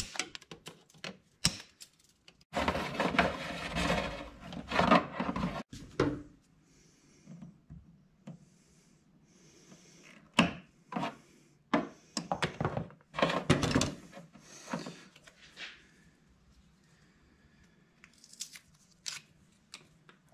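Hands and pliers working an electrical cable against the tractor's plastic dash panel: scattered clicks and taps, with stretches of rubbing and scraping as the cable is pulled up through the opening.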